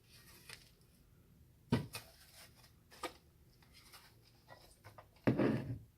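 Scattered sharp clicks and clacks of plastic and metal parts being handled and pried at while an electronic device is taken apart by hand, with a louder clatter near the end.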